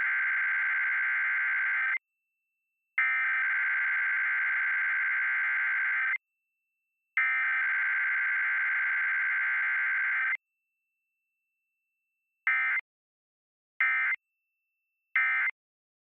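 Emergency Alert System SAME digital data bursts for a Required Weekly Test: three long raspy header bursts of about three seconds each, about a second apart, then three short end-of-message bursts in quick succession near the end.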